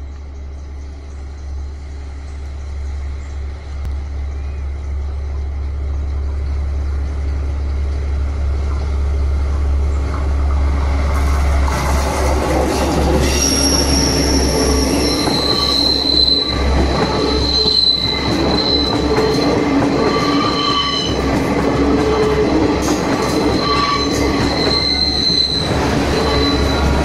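Passenger train approaching and passing close by, its rumble growing steadily louder over the first half. From about halfway through, the steel wheels squeal in long, high, shifting tones as the coaches run round a curve in the track.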